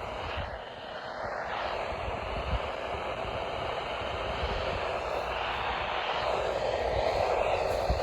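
Steady radio static hiss with no voice or tone, slowly getting a little louder.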